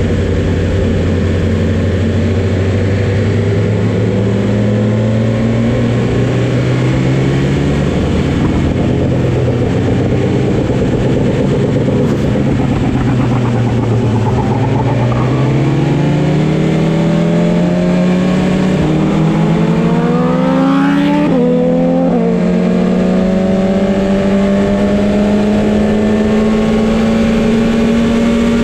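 Motorcycle engine easing off, then accelerating with its pitch climbing, a quick gear change about three-quarters of the way through, then holding a steady note, over a constant rush of wind noise.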